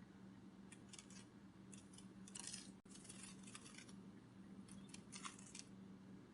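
Butterfly wing-flutter sound effect: clusters of short, crisp, papery flutters, about five groups, over a faint steady hum.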